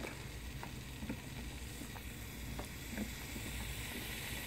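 Potassium permanganate and glycerin reacting, a faint sizzling hiss with a few small crackles, growing a little louder near the end. It is the sound of the mixture heating itself and pouring out smoke in the stage before ignition.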